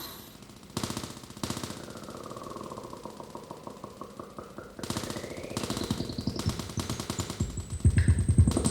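Experimental electronic noise music: a rapid stuttering rattle of clicks, with a thin pure tone that dips, then glides up to a high whistle and begins to fall again. The clicking grows louder and denser near the end.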